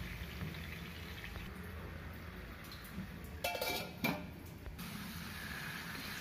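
A stainless steel lid clatters against a pan of fish for a moment about three and a half seconds in, with a short metallic ring, over a low steady hiss.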